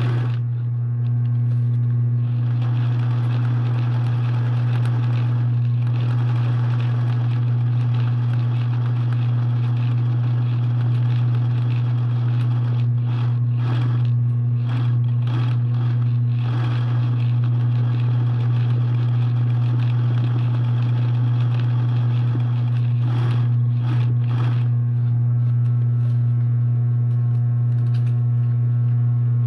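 Steady low hum at one constant pitch, like a motor or mains hum.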